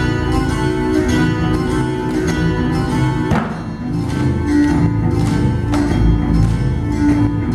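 Dance music with plucked guitar in a flamenco style over a steady beat, with a brief sweeping accent about three and a half seconds in.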